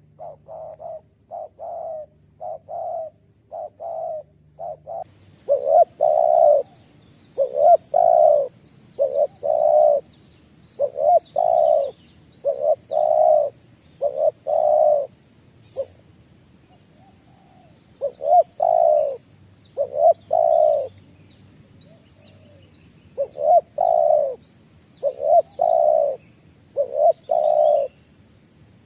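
Bird calls: a low cooing note repeated in runs, roughly one a second, with short pauses between runs. Fainter high chirps join in from about five seconds in.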